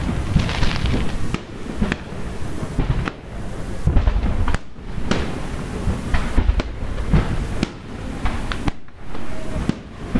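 Aerial fireworks shells bursting, with a bang about every second and a low rumble carrying on between them.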